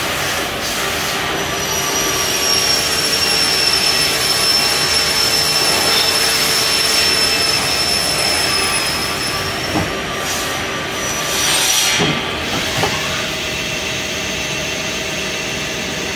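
Haas SL-30 CNC lathe running: the spindle spins a chucked part with a steady high whine over a hiss of machine noise. About two-thirds of the way through come a few sharp knocks and a brief surge, as the 12-station turret indexes to another tool.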